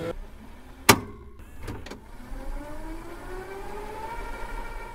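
A VCR stopping at the end of a tape and starting to rewind. There is one sharp mechanical clunk, a few lighter clicks, then the rewind motor's whine rising in pitch and levelling off.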